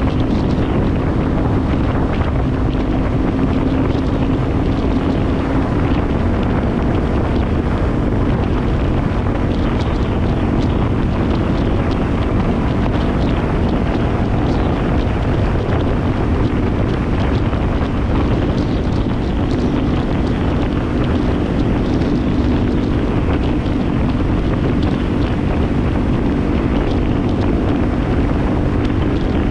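Yamaha WR250R's single-cylinder four-stroke engine running at a steady cruising speed, its drone weaker for a while midway, under constant wind rushing over the bike-mounted camera's microphone.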